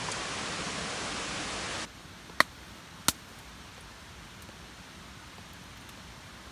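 A steady hiss that cuts off abruptly about two seconds in to a quieter background, followed by two sharp pops well under a second apart, as from campfire wood popping.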